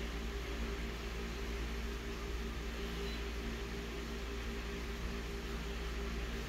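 Colour photocopier running at standby: a steady hum with a few constant low tones under an even hiss. A faint short high beep sounds about halfway through.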